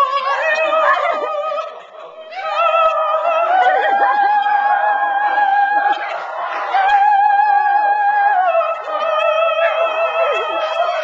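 Puppy howling in long, wavering held notes, each lasting a few seconds, with a short break about two seconds in.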